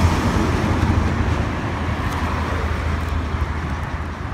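Steady road traffic noise, a continuous low rumble with a wash of hiss above it.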